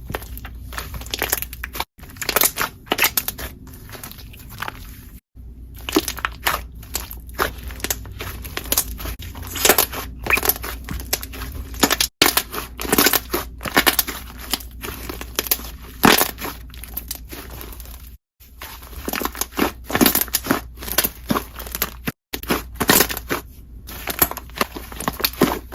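Slime being pressed and squeezed so that trapped air bubbles pop in quick, irregular crackling clicks, with several brief breaks.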